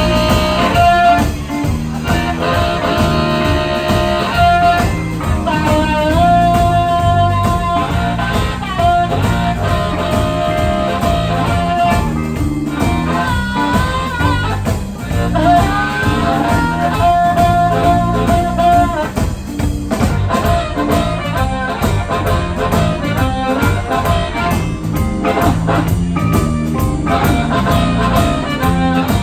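Live electric blues band: an amplified blues harmonica played cupped against a handheld microphone, wailing long held and bent notes, over electric guitar and drums keeping a steady beat.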